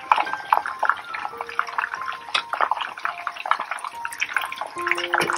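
Chicken pieces deep-frying in hot oil in a steel wok, a steady sizzle full of crackles and pops, as hot oil is ladled back over them.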